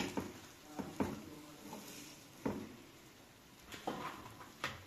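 A handful of separate short knocks and light clatters at irregular intervals, about five in all, with quiet room sound between them.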